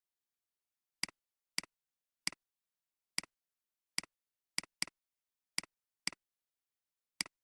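Computer mouse button clicks: ten short clicks at irregular intervals, each a quick press-and-release double tick, with dead silence between them.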